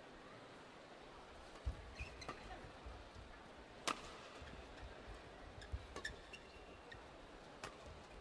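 Badminton rally: a shuttlecock struck back and forth by rackets, a sharp crack every second or two with the loudest about four seconds in. Short squeaks of shoes on the court floor come between the hits, over a faint murmur from the crowd.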